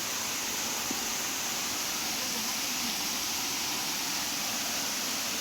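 Waterfall falling close by: a steady, even rushing hiss of water that does not change.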